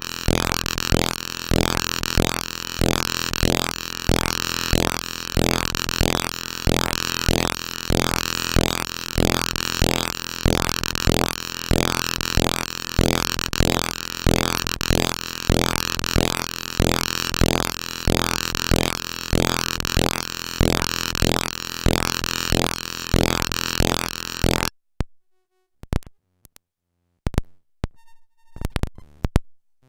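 Glitch-art electronic noise soundtrack: dense synthesized noise pulsing in an even, looping rhythm. Near the end it cuts off suddenly into near silence, broken by scattered short stuttering digital clicks.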